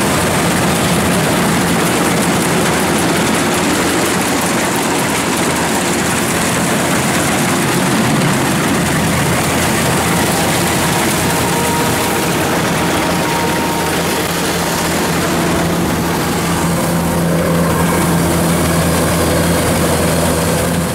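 Kubota rice combine harvester running steadily under load as it cuts and takes in the rice, its engine hum mixed with the clatter of the cutting and threshing machinery.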